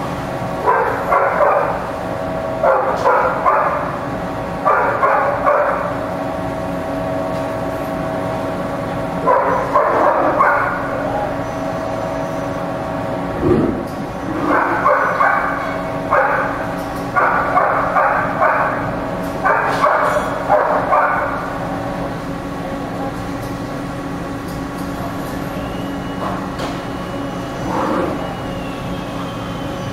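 Mori Seiki ZT 2500Y CNC lathe running: a steady machine hum with several held tones, broken again and again by rough bursts about a second long, often two or three in a row, as the tools cut. A low thump about halfway through.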